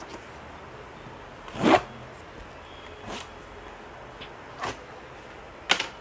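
Packing tape and cardboard flaps on a speaker box being torn and scraped open by hand. There are a few short rasping rips: the loudest comes a little under two seconds in, and a quick run of them comes near the end.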